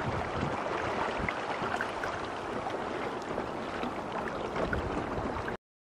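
Water rushing and lapping along the hull of a small sailboat under way, with light wind buffeting the microphone at moments. The sound cuts off abruptly near the end.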